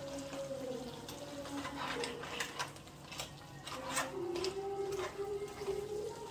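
Spatula stirring pieces of cooked mud crab in a nonstick pan, with irregular clicks and knocks as it scrapes the pan and turns the crab shells.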